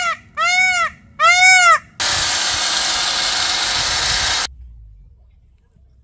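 Indian peafowl (peacock) calling three times in quick succession, loud, each call rising then falling in pitch. A steady hiss of about two and a half seconds follows and cuts off suddenly.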